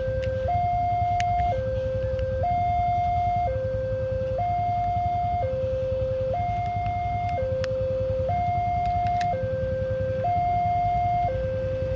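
Railway level crossing warning alarm, the Indonesian two-tone type, sounding hi-lo: it alternates steadily between a lower and a higher tone, each held about a second, the signal that a train is approaching with the barrier down. A low rumble runs underneath.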